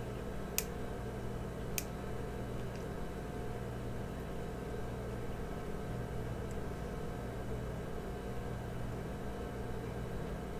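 Two small, sharp metallic clicks about a second apart near the start, from toothless jewelry pliers closing a metal jump ring, over a steady low hum.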